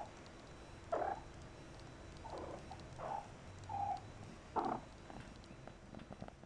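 A cat making about six short calls, spaced a second or less apart.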